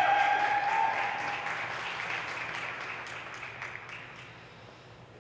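A small audience applauding, with one long high-pitched cheer held over the first couple of seconds; the clapping thins out and fades over about four seconds.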